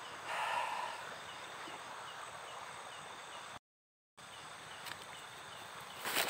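Night riverbank ambience: a steady rushing hiss with a faint high chirp repeating about twice a second, and a brief louder sound about half a second in. The sound cuts out completely for about half a second a little past the middle.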